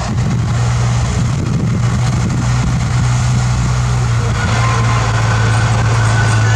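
Bulldozer's diesel engine running with a steady low hum.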